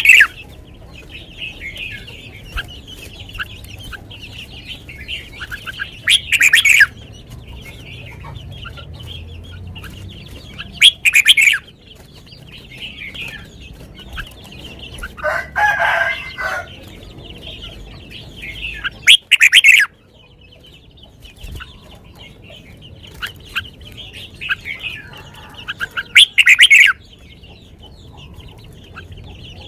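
Caged red-whiskered bulbul singing loud, short phrases about every five to eight seconds over a steady chatter of small birds. A chicken calls once about halfway through.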